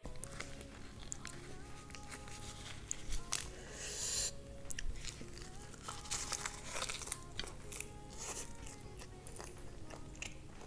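Crisp sheet of roasted seaweed crinkling and crackling as rice is wrapped in it, then crunched in a bite and chewed, with close-up mouth clicks. Soft background music plays underneath.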